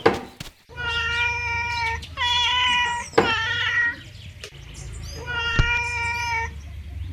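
A kitten meowing in three long, drawn-out mews, each over a second, with a couple of sharp clicks between them.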